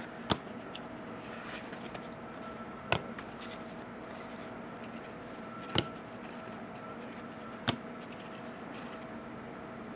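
Trading cards from a pack being handled and set down: four short sharp snaps a few seconds apart over a steady faint hum.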